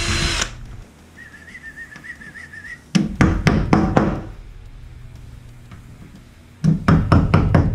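A cordless drill winds down and stops, then a faint whistled tune, then two quick runs of sharp taps, about five or six each, as plastic wall anchors are knocked into holes drilled in ceramic tile.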